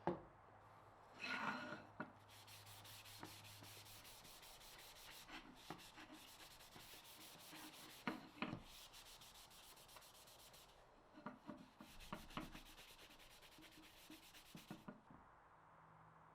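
Faint hand sanding of wood: quick back-and-forth rubbing strokes in two spells, with a short break around the eleventh second. A sharp knock right at the start.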